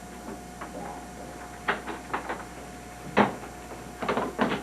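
A series of short knocks and clunks, the loudest about three seconds in and several more close together near the end, over a faint steady hum.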